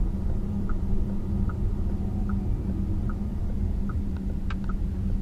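Car cabin noise while driving slowly: a steady low rumble of road and engine with a faint hum. A soft tick repeats evenly about every 0.8 seconds.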